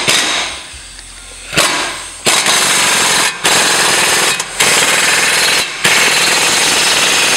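Impact wrench hammering on a suspension nut in five loud bursts of about a second each, starting about a second and a half in, each one stopping abruptly.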